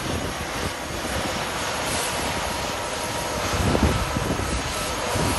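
Airbus A350's Rolls-Royce Trent XWB turbofan engines running at idle thrust while the airliner taxis slowly, a steady rushing jet noise with a faint steady whine. A low rumble swells briefly just before four seconds in.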